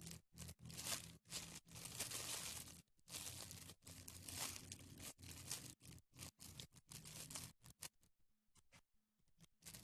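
Crinkling and rustling from a squishy toy being handled, in irregular noisy bursts with short gaps, thinning to a few faint bits near the end.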